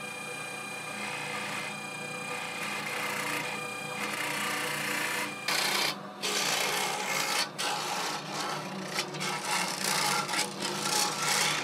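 Motor-spun thin steel boring rod running with a steady whine, then from about five seconds in a rough, uneven rasping as it grinds through the solid nodes inside a bamboo fishing-rod section, hollowing it out.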